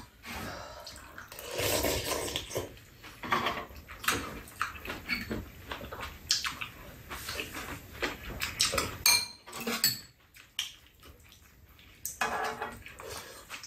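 Spoons and chopsticks clinking and scraping on ceramic bowls and a metal tray while two people eat, with wet chewing and eating sounds between the clinks; it goes quieter for a couple of seconds about ten seconds in.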